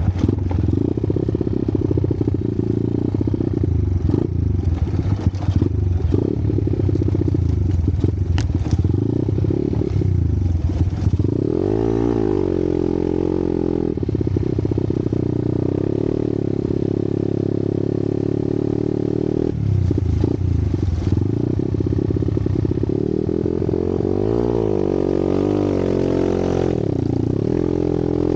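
Dirt bike engine running as it rides a rough trail, its pitch rising and falling several times as the throttle is opened and closed. The bike clatters and rattles over bumps between about four and nine seconds in.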